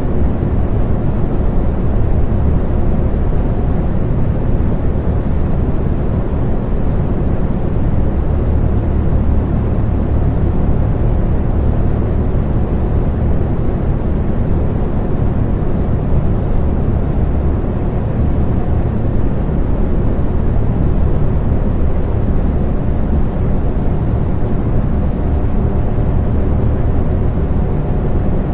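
Electric fan running steadily: a low, even whooshing hum of moving air, with a few faint steady tones from the motor.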